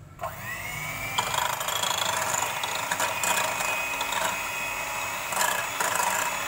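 Philips electric hand mixer switched on at low speed: its motor whine rises as it spins up just after the start, then runs steadily with a few clicks as the wire beaters whisk egg whites and sugar.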